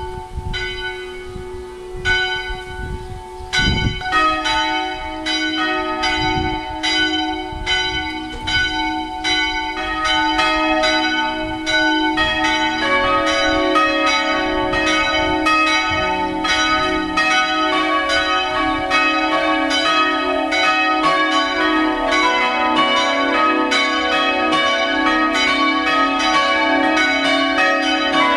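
Church bells of a five-bell peal tuned G♯4, B4, C♯5, D♯5, F♯5 (gis', h', cis'', dis'', fis''), ringing in constant overlapping strikes. The peal builds as further bells join over the first dozen seconds, then rings at full strength.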